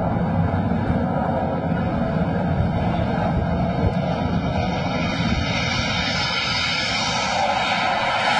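Carrier fighter jet's engines at takeoff power on the deck, a steady roar whose high hiss grows near the end as the jet comes past and lifts off the ski-jump ramp.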